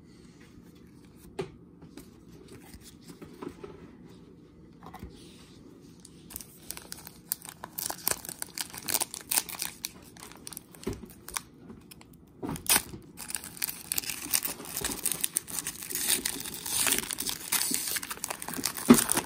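Foil trading-card pack wrapper being torn open and crinkled by hand: little more than a click at first, then continuous crinkling and tearing from about a third of the way in, with a brief pause and a sharp rip about two-thirds through.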